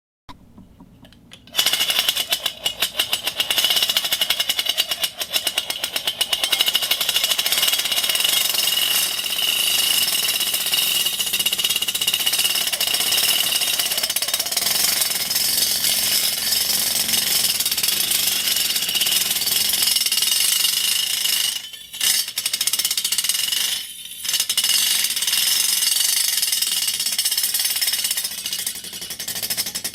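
Fishing reel being cranked: a fast, continuous clicking rattle that starts about a second and a half in, with two brief breaks in the last third.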